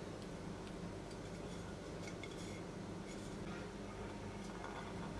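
Quiet room tone with a few faint, light clinks of a metal fork and a ceramic plate being handled.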